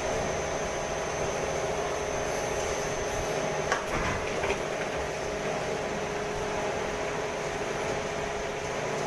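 Steady hum of plastic injection moulding machines running on a sandal-sole production floor. About four seconds in comes a sharp knock, then a couple of lighter ones.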